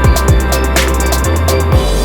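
Electronic background music with a deep kick drum, fast hi-hats and a steady bass line.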